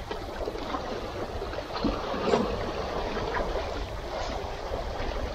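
Small sea waves washing and splashing among concrete tetrapod blocks, a steady wash, with wind on the microphone.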